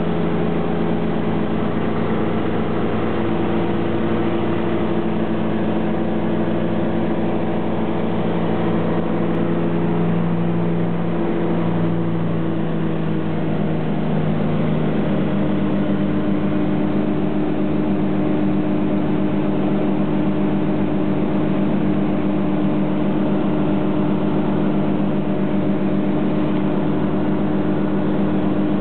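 Helio Courier single-engine propeller plane at takeoff power, heard from inside the cockpit: a loud, steady engine and propeller drone through the takeoff roll and climb-out. Its pitch shifts slightly about halfway through.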